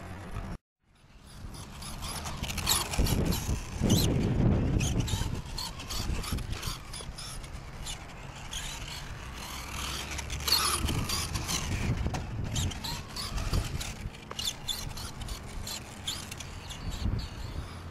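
Brushless motor of an RC stadium truck (Castle Mamba Max system, 6900 kV motor) whining up and down in pitch as the truck is driven hard around a concrete bowl. The sound cuts out briefly about half a second in.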